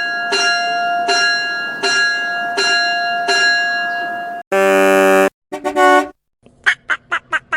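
A string of sound effects: a ringing note struck about six times, then a loud buzzing horn blast and a shorter one, then about five short squeaks near the end.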